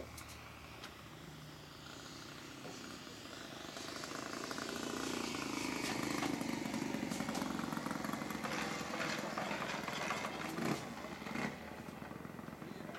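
OS 120 Surpass four-stroke glow engine of a large RC Gee Bee R2, throttled back on a landing approach. It grows louder as the plane comes in low, then drops slightly in pitch and fades as the model touches down and rolls out on the runway.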